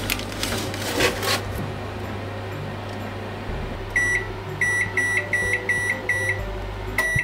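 Microwave oven's keypad beeping as its oven timer is set to an hour and started: one longer beep, then a quick run of six short beeps about three a second, and a final beep near the end. A steady low hum runs under it, and there is a clatter in the first second and a half.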